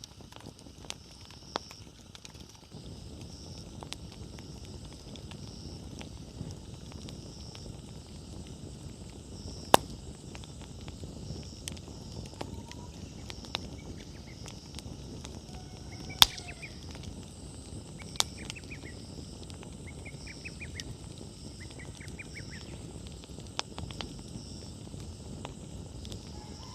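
Wood fire burning, its low rushing noise punctuated by sharp crackling pops, the loudest about ten and sixteen seconds in. The rushing grows fuller about three seconds in, where fresh firewood has just been added.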